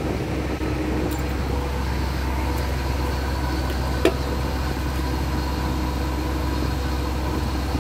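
Heavy truck's diesel engine idling steadily. A single sharp click about four seconds in as the latch of a Hendrickson control box under the frame is flipped open.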